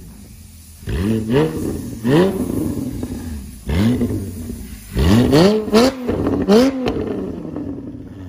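Porsche 981 Cayman GT4's 3.8-litre flat-six, running through catless headers and a valvetronic titanium exhaust, revved while stationary in a series of sharp throttle blips, some in quick pairs and triples. Each rev rises fast and drops back, with a few sharp cracks between the later blips, and the last one dies away slowly.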